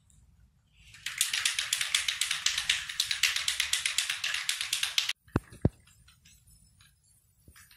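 Spray paint can being shaken hard, its mixing ball rattling in a fast, even rhythm for about four seconds before stopping abruptly, followed by two short knocks.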